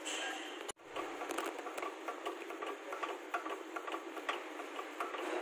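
Ratchet wrench clicking in quick, irregular runs as a nut on a vehicle's front suspension is worked.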